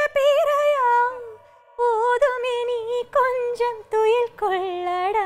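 A woman singing a slow Tamil lullaby solo, without accompaniment: long held notes with wavering pitch ornaments, and a short pause for breath about a second and a half in.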